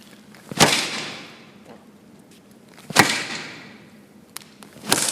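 Three gunshots about two seconds apart, each cracking sharply and dying away in an echo over about a second; a small click comes just before the third.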